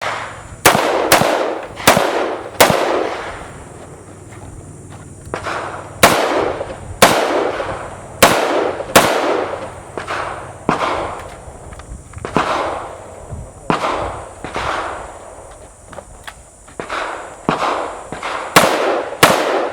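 A string of gunshots, about eighteen, fired at an uneven pace, often in quick pairs about half a second apart. Each shot has a ringing echo tail.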